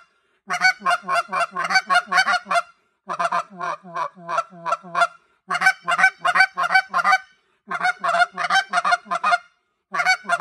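Short reed goose call blown in rapid double clucks ('ha-hut, ha-hut'), worked into a calling cadence. The quick notes come in runs of about two seconds, with short half-second pauses between them.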